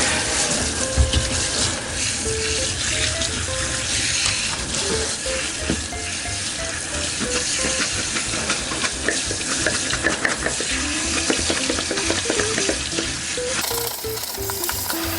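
A vacuum cleaner filter being washed: steady splashing water and a toothbrush scrubbing in quick strokes, with light background music.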